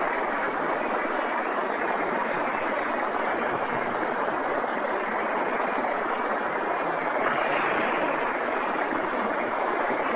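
Steady hiss of an amplified voice recorder's background noise, even and unbroken, with no voice or other event in it.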